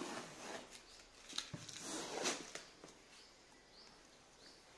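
Cardboard shipping carton being handled and opened: rustling and scraping of cardboard with a few sharp knocks over the first couple of seconds, then quieter handling.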